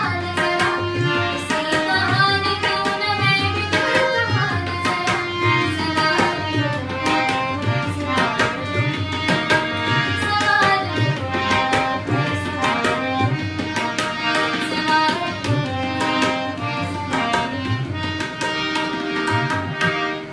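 Tabla playing a steady rhythm, its deep bass-drum strokes coming regularly under a melody, in Indian classical or folk-style music.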